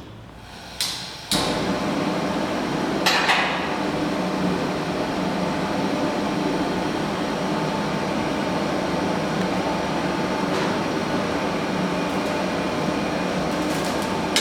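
A machine switched on about a second in, then running with an even, steady hum, with a sharp knock or clink about three seconds in.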